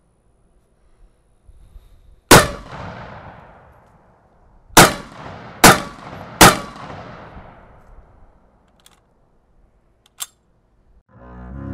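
Walther K43 semi-automatic rifle in 7.92×57mm Mauser fired four times: one shot, then a quick string of three less than a second apart, each crack trailing off in an echo. A short, sharp click follows near the end.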